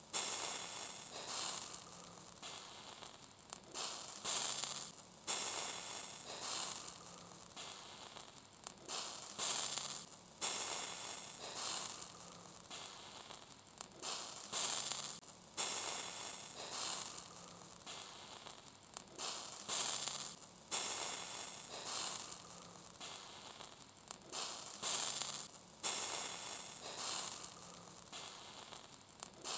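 Fat dripping from grilling sausages onto a hot grill: a sudden sizzling hiss every second or two, each one fading away quickly.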